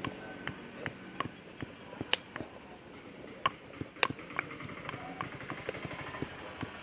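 Pestle pounding in a small stone mortar, a run of short knocks about two to three a second, with a couple of sharper, louder cracks mixed in.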